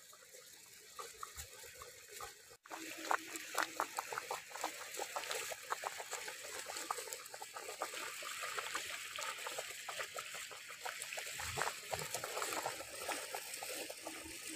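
Large metal pot of chicken broth boiling hard over a wood fire: a steady rush of rapid bubbling and small pops. It is quieter at first, then louder after a brief break about two and a half seconds in.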